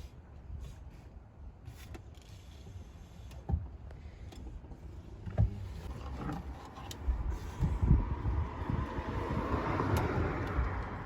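Scattered knocks and clunks from handling parts inside a car's interior, over a low rumble, with a hiss building up in the last few seconds.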